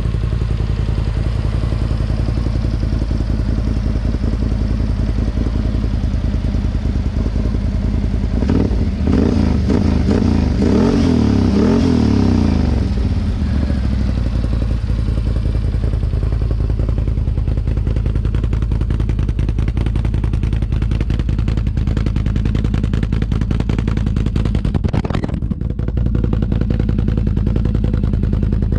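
2020 Can-Am Outlander XMR 1000's Rotax V-twin engine running through a Yoshimura exhaust, idling steadily. About nine seconds in it is revved several times, pitch rising and falling for a few seconds, then it settles back to idle.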